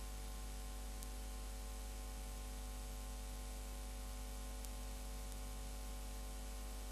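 Steady hiss with a low electrical hum: the recording's own noise floor with no other sound, and two faint ticks about a second in and past the middle.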